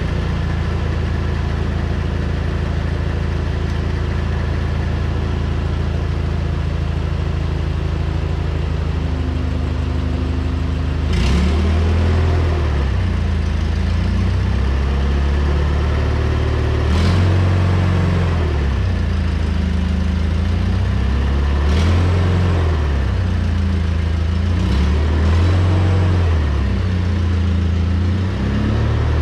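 Hyster 30 forklift's engine idling steadily, then revving up about a third of the way in and rising and falling several more times as the forklift is driven. Each change comes with a sharp clack.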